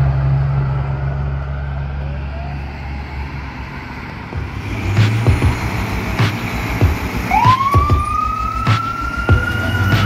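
Fire truck's mechanical Q siren winding up about seven seconds in, its pitch climbing and then holding high, over a steady low rumble of engine and traffic. Several sharp clicks are heard in the second half.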